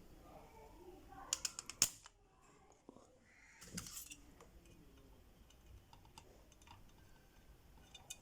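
Spring-loaded solder sucker (desoldering pump) at work on a phone's circuit board: a quick run of sharp clicks as the plunger is pushed down and latched, then about two seconds later a snap with a brief hiss as it fires, sucking molten solder from the charging-port pads. Faint clicks of handling follow.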